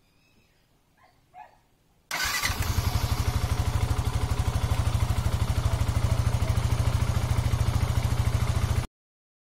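Yamaha FZ V2.0's single-cylinder four-stroke engine coming in abruptly about two seconds in and idling steadily with an even, fast pulse, running on engine flush mixed into the old oil before the drain. The sound cuts off suddenly near the end.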